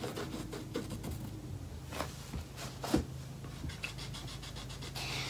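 Faint scratching and rubbing of a pencil on a painted canvas, with two light knocks about two and three seconds in, over a low steady hum.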